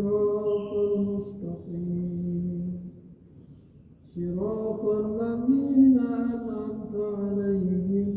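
A man's voice reciting the Quran aloud in melodic Arabic chant, the imam leading the Friday congregational prayer: two long sung phrases with a pause of about a second between them.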